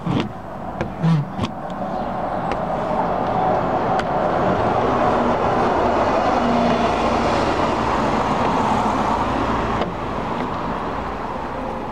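A car passing on the street, its tyre and engine noise building over several seconds and falling away about ten seconds in. A few light knocks near the start.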